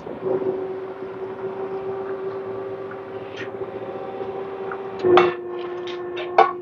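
Espresso machine running steadily with a low hum while a shot pours, split between a glass jug and a cup. A few sharp clinks and knocks come near the end.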